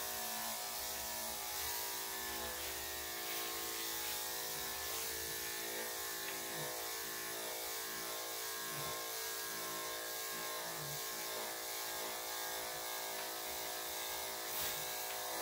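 Electric dog grooming clippers fitted with a #5 blade, running with a steady buzzing hum as they clip through a dog's coat; the blade has just been oiled.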